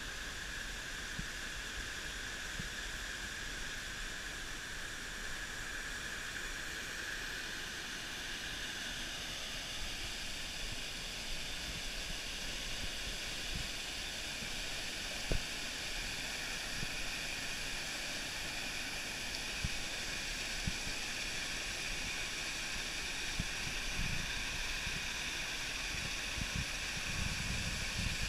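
Steady rushing of a small waterfall cascading over rock ledges into a stream, with a few brief low knocks, the strongest about halfway through.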